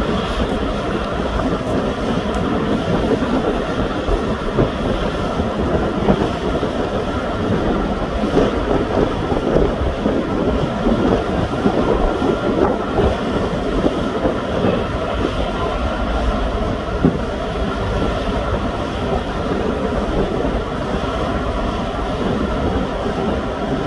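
Steady, loud mechanical rumble of heavy machinery running, with no distinct knocks or changes.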